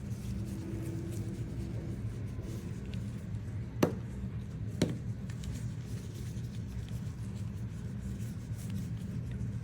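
Light scratchy rubbing of a disinfectant wipe on an AirPods case, with two sharp clicks about a second apart near the middle, over a steady low hum.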